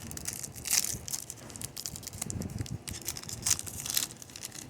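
Wrapper of a Topps baseball card pack crinkling and tearing as it is opened, in irregular rustles with louder flurries about a second in and again around three and a half seconds in.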